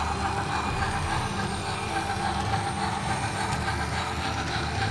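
Motorised BRIO toy train running steadily along wooden track: an even electric-motor whir with the rolling of its wheels.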